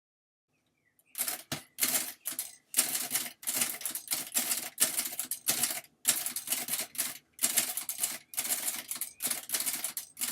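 Remington Deluxe Noiseless portable typewriter being typed on: quick runs of keystrokes in short bursts, starting about a second in. Its type bars are pushed toward the platen and reach it by momentum rather than being flung at full force.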